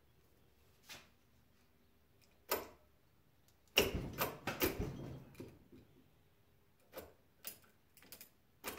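Scattered metal clicks and knocks of vice grips working a steel bolt sleeve out of an LS 5.3 connecting rod, with a busy run of clatter about four seconds in and a few sharp ticks near the end.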